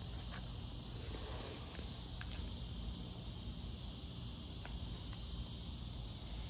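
Steady high-pitched chirring of insects, with a low rumble underneath and a few faint clicks.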